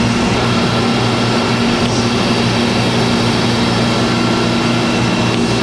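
Steady, loud din of machine-shop machinery, CNC machine tools running, with a constant low hum and a few faint steady whines over it.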